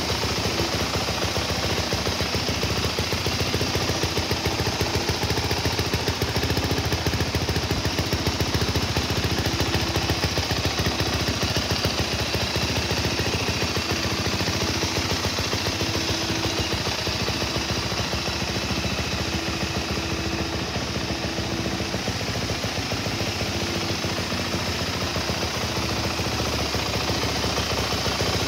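Yamaha YZ450F's 450 cc single-cylinder four-stroke engine idling steadily, a fast, even run of exhaust pulses.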